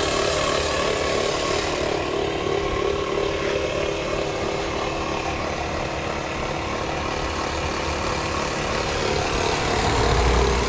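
A motor running steadily with a constant hum, with a low rumble that grows a little louder near the end.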